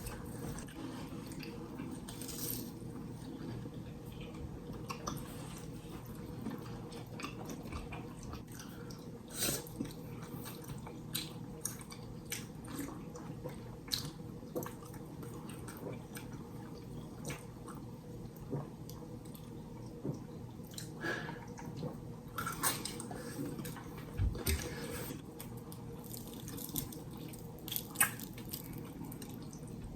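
Fried chicken being eaten close to the microphone: scattered crunchy bites, chewing and wet mouth sounds at irregular moments, over a steady low hum.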